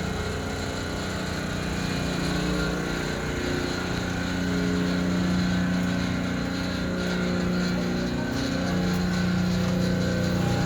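Concrete mixer truck's diesel engine running steadily, with a constant low hum.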